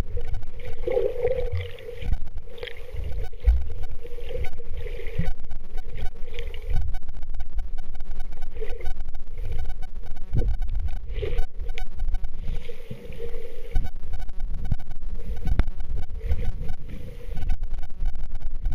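Muffled, low rumble of water moving around an underwater camera, with irregular knocks and soft swishes from the swimmer's movement.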